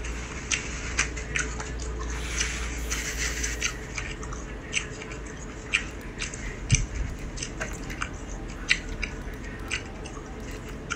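Irregular small clicks and taps close to a phone microphone, a few every second, over a low steady hum.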